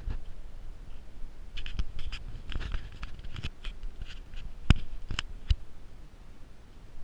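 Handling noise from a handheld camera carried on a walk: irregular clicks and knocks over a low rumble, with two sharper knocks a little after halfway.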